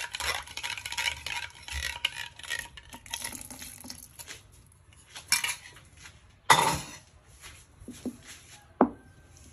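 Metal spoon scraping and tapping quickly against a ceramic bowl for the first few seconds, then two louder clinks of spoon and dishware about five and six and a half seconds in, the second the loudest. After that comes quieter stirring of thick bean batter with a sharp click near the end.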